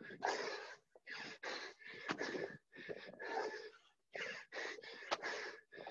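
Heavy, rapid breathing of a person doing burpees: loud breaths roughly once a second from exertion, with a couple of sharp knocks as the exercise goes on.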